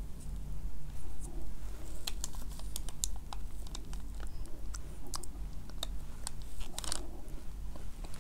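Plastic fork cutting through a soft chiffon cake and its whipped-cream frosting, heard close up: irregular small clicks, crinkles and scrapes as it works through the sponge and against the paper liner, with a longer scrape near the end as a piece comes free. A steady low hum runs underneath.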